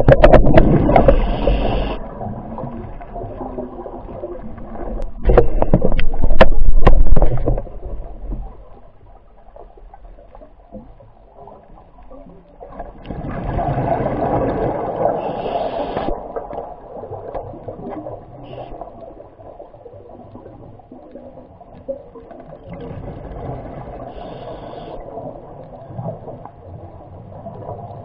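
Muffled underwater rushing and gurgling heard through a camera's waterproof housing, loudest over the first several seconds with a cluster of sharp knocks, then swelling again in surges about ten seconds apart.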